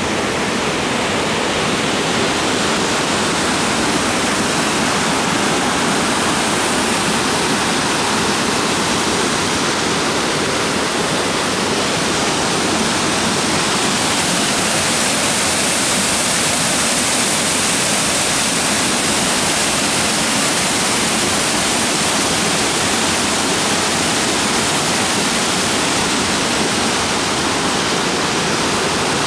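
Steady rushing of river water pouring over a low concrete dam spillway and churning at its foot.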